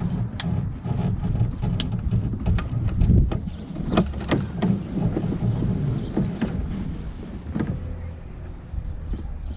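Wind rumbling on the microphone, with scattered sharp clicks and knocks from an outboard motor being swung left and right on its manual steering, the steering rod sliding through the freshly greased tilt tube. The clicks come thickest in the middle.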